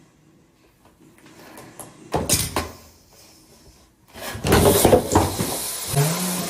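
Loud banging and clattering of hard objects being knocked about, once about two seconds in and again, longer and louder, from about four seconds in, trailing off into a steady hiss.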